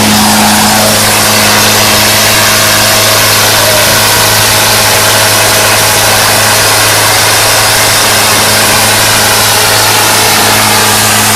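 Tractor diesel engine running at a steady speed, very loud and overloading the phone's microphone: a constant low hum under a dense hiss.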